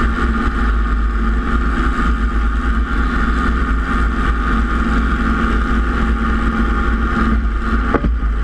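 Robinson R22 helicopter running close to the ground, its four-cylinder Lycoming piston engine and main rotor heard from a camera mounted on the outside of the airframe: a loud, steady mechanical drone over a heavy low rumble. A brief rising tone near the end.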